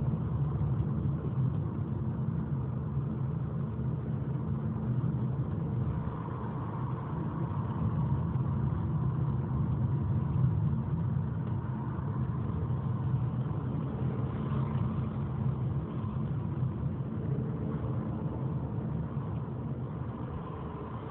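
Car engine running steadily at raised revs, heard from inside the cabin. After a repair the car has a transmission fault in which the engine revs high while the speed does not build.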